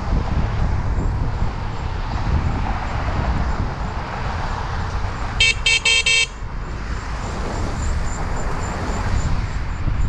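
Loud Bicycle Mini car-style bicycle horn blown in about four quick short beeps, all within under a second, about five and a half seconds in. Steady wind and rolling rumble on the helmet camera runs under it.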